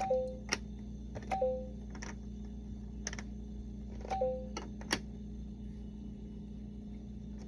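Plastic letter pieces of a LeapFrog Fridge Words magnetic word builder clicking as they are pulled out of and pushed into the toy's slots, about eight sharp clicks in all. The toy gives a short electronic beep three times: near the start, about a second and a half in, and just past the four-second mark.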